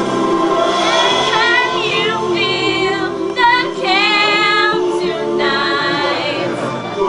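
Women singing a song with long, wavering held notes, over steady accompanying music.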